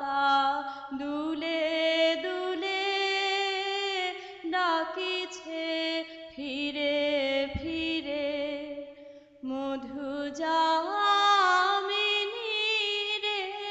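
A woman singing a slow, ornamented song solo, her pitch wavering and sliding within each line, in several phrases with short breaks between them.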